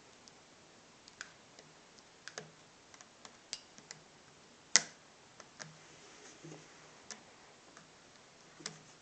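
Irregular small clicks and ticks of a screwdriver working the tiny screws that hold a netbook's LCD panel, with one sharper click about five seconds in.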